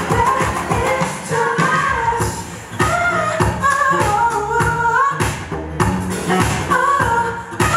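K-pop song with a singer's voice over a steady beat.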